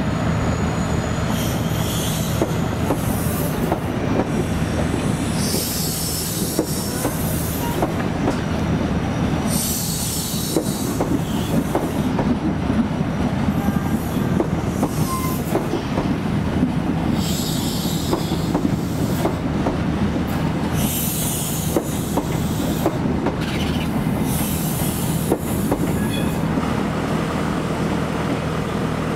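Irish Rail Mark 3 passenger carriages rolling through station pointwork: wheels clicking over rail joints and points, with high-pitched wheel squeal flaring up again and again every few seconds. Under it all runs a steady low drone.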